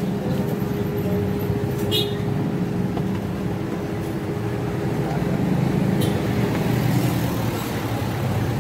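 Steady low rumble of motor-vehicle traffic and engines, with a steady hum that fades out about two-thirds of the way through. Two short clicks are also heard, about two seconds and six seconds in.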